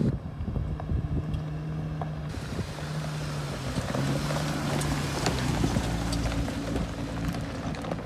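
Lifted Jeep Wrangler's engine running, its hum shifting in pitch a few times as it drives, with wind noise on the microphone.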